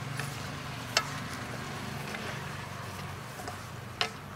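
Thick coconut curry sizzling and simmering in a wok while a wooden spatula stirs it, with two sharp knocks of the spatula on the pan, about a second in and near the end.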